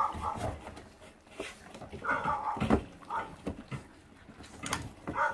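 Feral-dog puppies gnawing raw duck meat and bones, with scattered sharp clicks of chewing and crunching. A puppy gives a few short cries, about 2 s in, about 3 s in and near the end.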